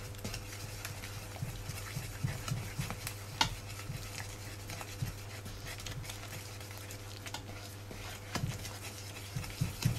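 Silicone spatula stirring and scraping a flour, egg yolk and milk mixture in a plastic mixing bowl: soft, irregular taps and scrapes over a steady low hum.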